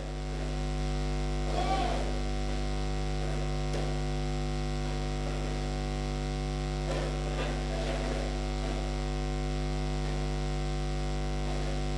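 Steady electrical mains hum, a low buzz with many even overtones, with a congregation's voices praying aloud faintly underneath it.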